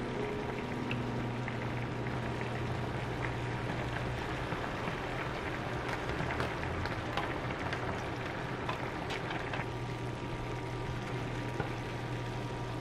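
Shrimp and chives sizzling in oil in a frying pan, with a pot of bean sprouts boiling alongside: a steady hiss with scattered light clicks and taps of a wooden spoon.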